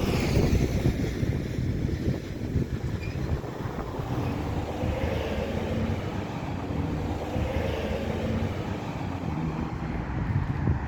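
Wind buffeting the microphone outdoors: a continuous, gusty low rumble.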